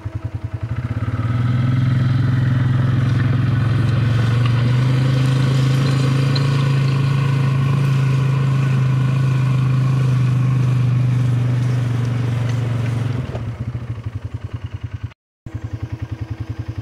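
ATV engine idling, then pulling away and running at a steady speed for about twelve seconds before dropping back to an idle. The sound cuts out briefly near the end, then the idle resumes.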